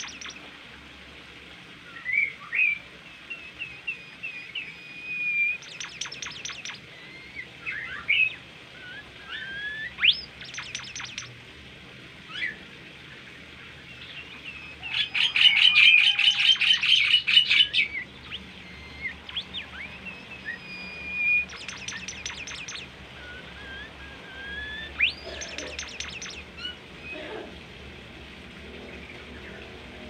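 Caged bimoli songbird singing: clear whistled notes and short slurred glides, broken by several rapid rattling trills. The longest and loudest trill comes about halfway through and lasts around three seconds.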